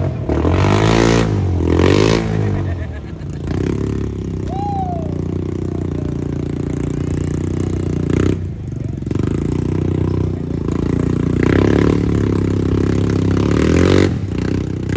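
An off-road vehicle's engine revving hard up and down, then holding high revs, with another run of revving near the end.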